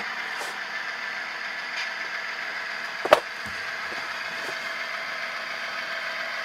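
Tsunami sound decoder in an HO-scale model locomotive playing a GE Evolution-series diesel engine, running steadily through the model's small speaker. A single sharp knock about three seconds in.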